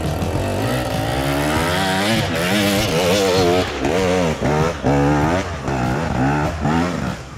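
Dirt bike engine revving, its pitch swinging up and down continually, then in a run of quick throttle blips in the second half, each dipping and climbing again.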